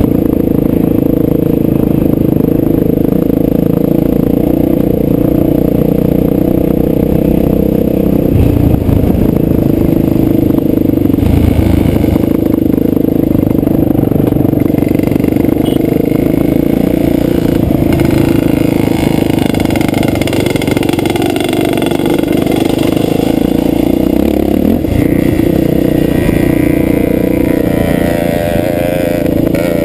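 Dirt bike engine running loud and steady, heard from a camera mounted on the bike, with gravel scraping and clattering under the tyres. The revs rise and fall in the second half.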